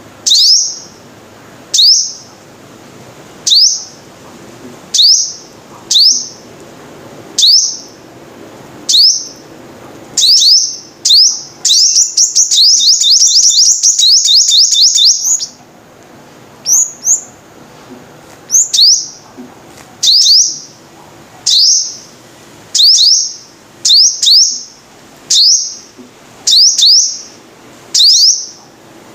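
Sunbird calling: a sharp, high rising note repeated roughly every second and a half. About twelve seconds in, a rapid trill of quick notes runs for about three seconds before the single rising notes resume.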